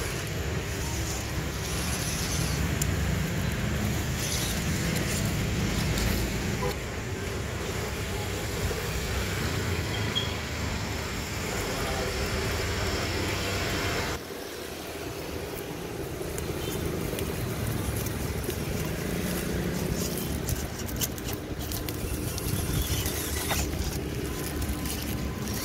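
Small electric motors and gearboxes of two RC 4x4 crawlers, an MN99S and a WPL C24, whirring as they drive over grass and dry leaves, over a steady rumble of road traffic. The sound drops suddenly about fourteen seconds in.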